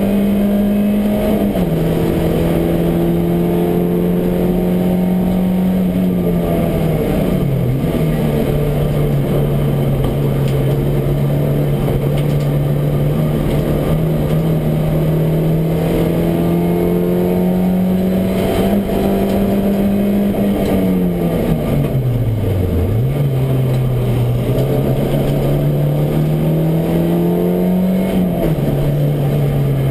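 Race car engine heard from inside the cockpit, running at high, steady revs. The pitch steps down with an upshift about a second and a half in and again near the end. It falls and climbs back twice, the deeper dip about two-thirds of the way through, as the car slows for corners and accelerates out.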